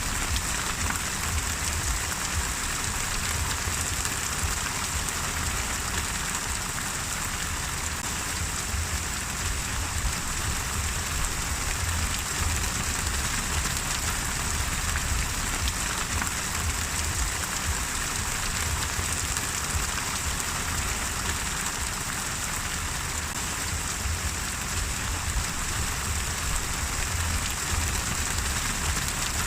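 Steady rain falling on a surface, an even unbroken hiss of many drops with a low rumble underneath.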